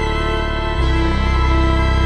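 Film score music of held, sustained chords, which shift about a second in to a new chord with a strong deep bass, a little louder.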